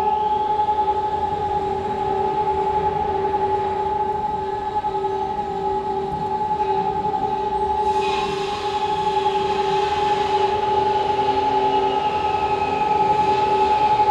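City civil defence air raid sirens sounding one long, steady, unbroken tone. About halfway through, a fainter wavering higher whine and hiss join it.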